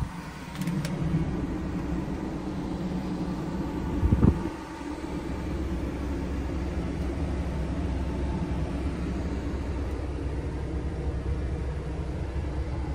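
DAF XF480's PACCAR MX-13 diesel idling, heard inside the cab as a steady low rumble, with a brief thump about four seconds in.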